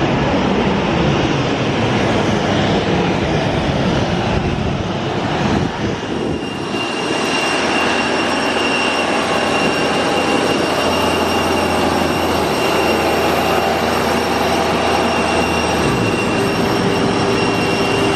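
Loud, steady jet airliner noise on the ground, with a high, steady whine joining in about six seconds in.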